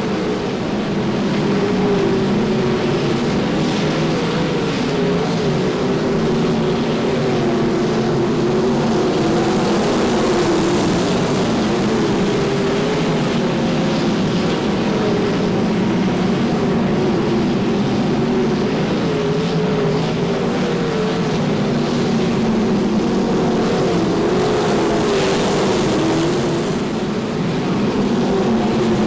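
A field of winged sprint cars' V8 engines racing around a dirt oval, a continuous loud drone whose pitch rises and falls as the cars go on and off the throttle through the turns.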